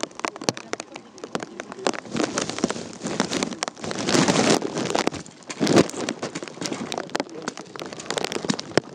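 Rain falling, with many scattered drops pattering close to the microphone and a louder rustling surge about four seconds in.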